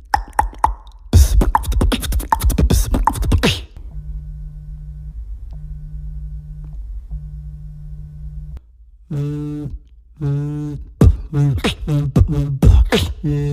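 Beatboxed sound effects made with the mouth and voice: a fast run of sharp clicks, then a steady low hum broken by two short gaps, then a string of pitched vocal sounds that fall in pitch.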